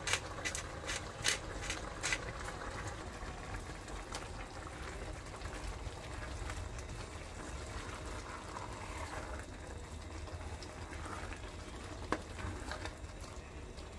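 Chicken-and-onion empanada filling simmering in its broth in a pot: a steady bubbling hiss. A quick run of sharp clicks comes in the first two seconds, and a couple more near the end.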